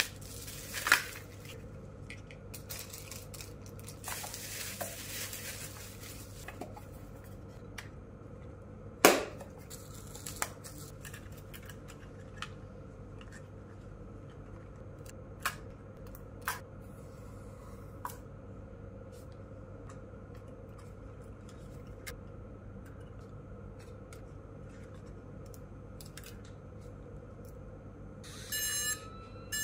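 Unboxing handling sounds: plastic bubble wrap rustling as parts are unwrapped, then scattered sharp clicks and taps as components are set down and the folded drone's arms are unfolded. Near the end comes a short run of electronic beeps.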